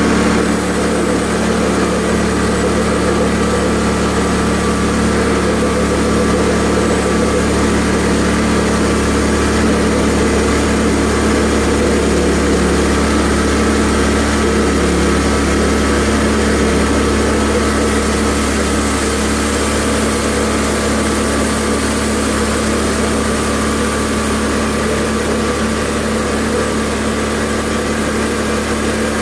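Portable bandsaw mill running steadily under load, its band blade cutting through an ash burl. The burl is full of dirt, which is striking sparks off the blade and dulling it.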